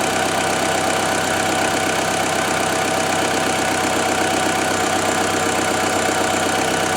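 VW CrossFox 1.6 8-valve EA111 flex-fuel four-cylinder engine idling steadily, running smoothly now that two faulty fuel injectors have been replaced.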